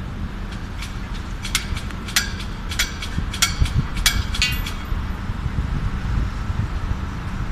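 Steady low rumble of engines and road traffic on a construction site. About a second and a half in comes a run of sharp metallic clanks, some ringing briefly, ending about four and a half seconds in.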